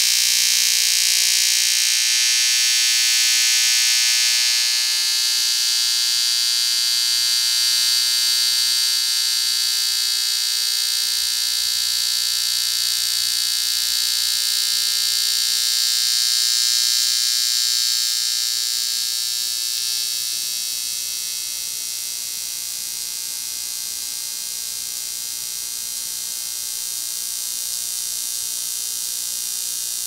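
Heliognosis AR1 VLF receiver turning the electromagnetic noise of nearby houses and street lights into sound: a dense electrical buzz of many steady tones with a high hiss over it. The buzz weakens and quietens about two-thirds of the way through as the receiver moves away from the road and houses.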